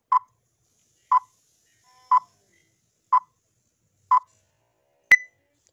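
Five short electronic beeps, evenly spaced about a second apart, then a sharper, higher-pitched click with a brief ring.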